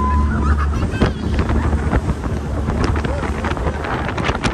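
Motorboat under way: wind buffets the microphone in crackling gusts over a steady low rumble from the boat.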